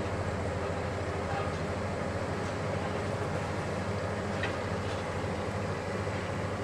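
Hitachi 870 XXL demolition excavator's diesel engine and hydraulics running steadily as its long telescopic demolition boom moves, a constant low rumble, with one light click about two thirds of the way in.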